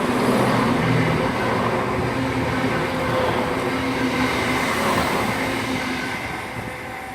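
Chiltern Railways Class 168 diesel multiple unit passing through a station: its diesel engines hum under the rumble of the wheels on the rails, loudest about a second in and then slowly fading as it goes by.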